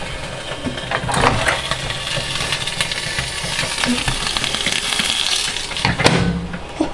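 Microwave oven running with tinfoil and metal inside arcing: a crackling, sizzling hiss full of small snaps over the oven's hum, with a sharp snap near the end.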